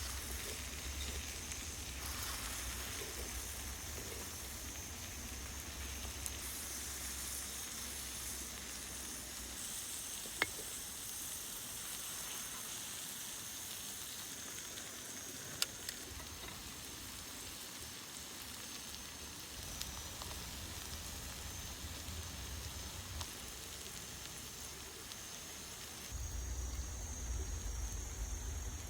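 Steak sizzling on a hot stone over a campfire: a steady hiss with a few sharp pops, over a low rumble that grows stronger near the end.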